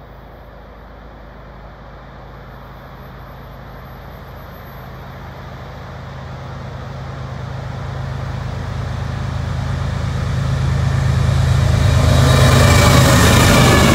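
BNSF freight train's diesel locomotives approaching, a steady low engine drone growing steadily louder. Wheel and rail noise joins near the end as the lead units pass close by.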